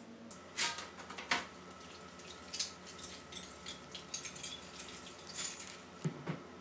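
Plastic dessert cups knocked and set down on a counter: two sharp clicks about a second in, followed by a run of small light clicks and handling rustles.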